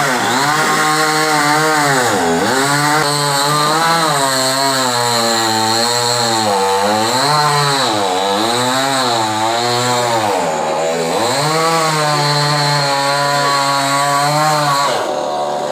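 Chainsaw cutting into a coconut tree trunk, its engine pitch repeatedly sagging under load and picking back up every two seconds or so. The engine note drops away near the end.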